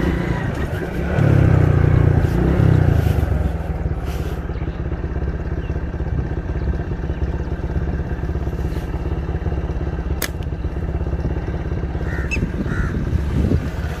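Motorcycle engine running steadily, louder for the first few seconds, with a single sharp click about ten seconds in.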